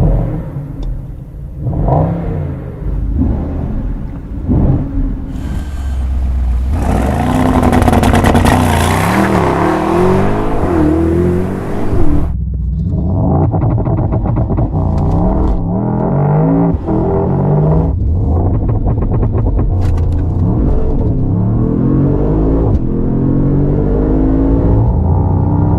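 Mercedes-AMG GT 63's twin-turbo 4.0-litre V8 engine revving in short blips for the first few seconds, then pulling hard under a loud rushing noise that cuts off abruptly about twelve seconds in. After that the engine pitch climbs and drops back again and again as it shifts up through the gears.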